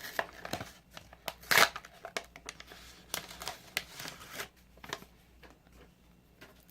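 A grab bag of trading cards being opened by hand: rustling and crinkling of the packaging, with a louder burst about a second and a half in. The handling dies down after about four and a half seconds.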